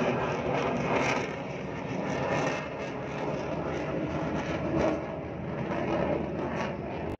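Sukhoi Su-30MKI fighter jet's twin thrust-vectoring turbofan engines running during a low-level aerobatic pass, a continuous jet rush that swells and eases, loudest about a second in and again near five seconds.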